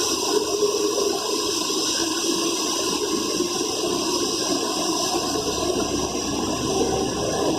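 Steady rushing hiss of a small blower or fan running at a constant speed, with a few faint steady whining tones on top.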